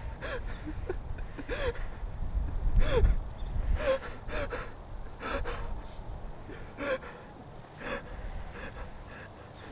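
A young man sobbing in short gasping breaths, about one catch a second, growing quieter in the second half. A low rumble lies under the first three seconds.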